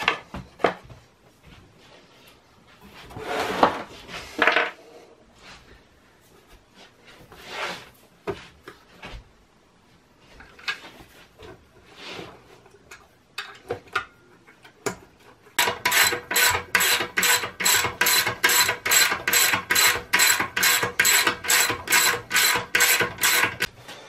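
Ratchet wrench clicking in quick, even back-and-forth strokes, about three a second, tightening the bolts that hold the pump and motor onto the air compressor tank. Before that, scattered knocks and rubbing of metal parts being handled and fitted.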